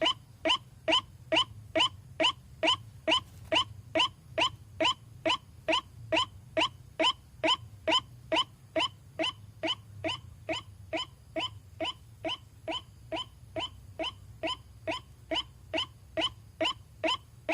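White-breasted waterhen (ruak-ruak) calling, its short "kwak" note repeated in an even, unbroken rhythm of about two to three notes a second, played as a lure call. A faint steady low hum runs underneath.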